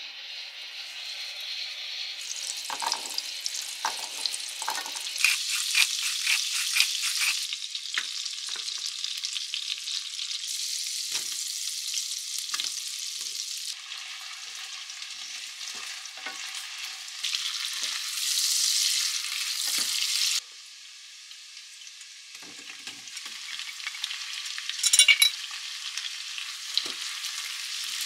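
Food sizzling in a hot frying pan while it is stirred, the utensil tapping and scraping against the pan. The sizzle changes abruptly several times, and a quick run of sharp clicks comes near the end.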